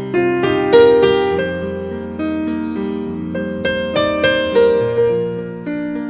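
Background music: piano playing a melody over held chords, each note struck and left to ring out.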